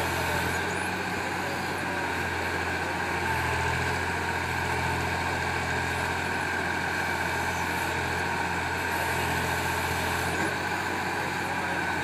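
Mahindra tractor's diesel engine running steadily under load while it powers the backhoe hydraulics digging and lifting soil, swelling slightly in level now and then.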